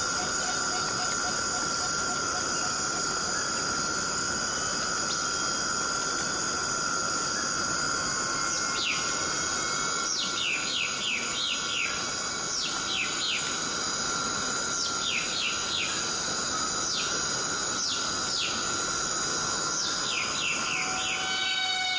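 Rainforest ambience: steady rain hiss under a constant high insect drone. From about eight seconds in, clusters of quick calls that fall in pitch repeat every second or two.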